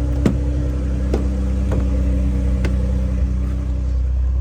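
A motor vehicle's engine running steadily with a low hum, with four short sharp clicks or knocks in the first three seconds.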